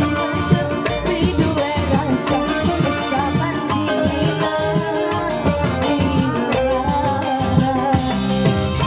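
Live dangdut band music: a woman sings into a microphone over an electronic keyboard and a steady drum beat.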